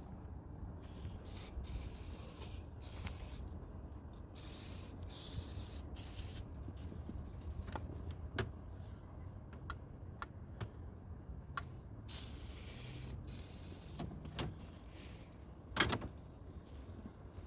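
Short hissing bursts of an aerosol can of throttle body cleaner spraying: several in the first six seconds and a longer one about twelve seconds in. Scattered clicks of parts being handled, with a louder knock near the end.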